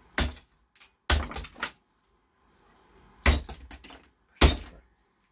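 Hammer blows smashing the plastic housing of a small fan motor. Four sharp strikes, the second followed by two lighter knocks.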